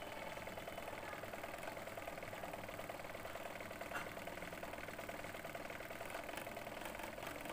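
Homemade generator, a small 12-watt DC motor spinning a desert-cooler water-pump motor, running with a steady hum and faint whine. It is working under the load of a phone charger plugged into its output, which the builder says has brought its sound down.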